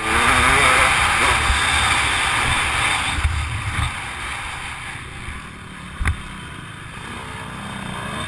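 Dirt bike engine running under throttle, heard through a helmet-mounted microphone with a rush of air. It is loud and rising and falling in pitch for the first three seconds, then eases off and runs quieter, with a single thump about six seconds in.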